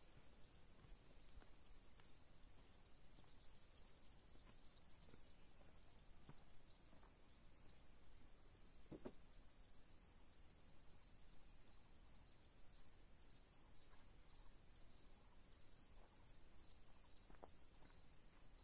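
Faint high insect trilling, pulsing about once a second, with a few faint ticks; one tick about nine seconds in is a little louder.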